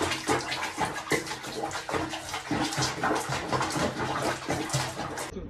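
Water splashing and sloshing in an irregular stream of small splashes, cutting off abruptly near the end.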